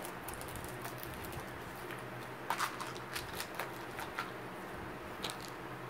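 Scattered light clicks and rustles of small items being handled while rummaging in a purse, clustered from about halfway in, over a steady low hum.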